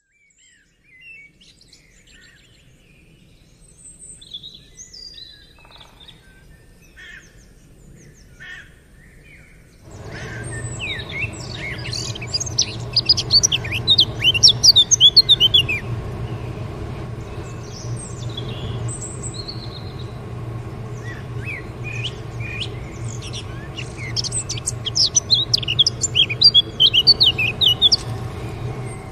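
Many small birds chirping and twittering in quick, short calls. About ten seconds in, a steady low rumble starts suddenly underneath and the chirping grows louder.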